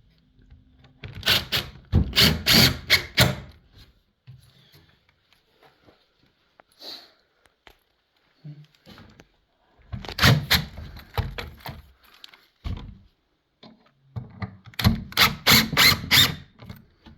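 Screws being driven into the worktop from underneath: three separate bursts of about two seconds each of rapid grinding strokes, one screw after another, with small knocks in between.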